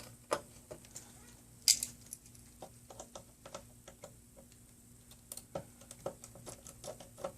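Small screwdriver working the screws out of a Dell Latitude E6530's screen assembly: a string of light, irregular clicks and ticks of metal and plastic, with a sharper click about a second and a half in.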